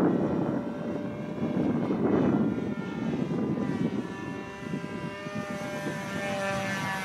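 Radio-controlled Eaglet 50 trainer's .15 two-stroke glow engine buzzing as the model flies past overhead, growing clearer and louder as it closes in. Wind buffets the microphone during the first two seconds.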